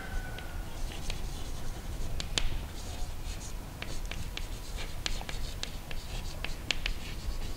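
Chalk writing on a blackboard: a string of short, sharp taps and scratches at an irregular pace as the words are written.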